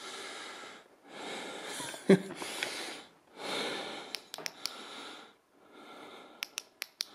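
A person breathing heavily close to the microphone, in four long breaths with short pauses between them. Several sharp clicks come in the second half.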